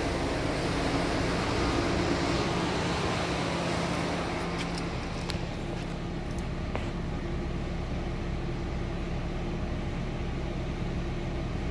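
2015 Dodge Dart's 2.4-litre four-cylinder engine idling steadily, with a few light clicks about halfway through.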